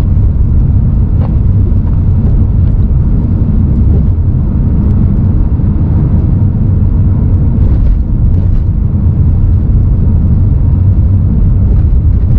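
Car driving along a highway, a steady loud rumble of road and engine noise.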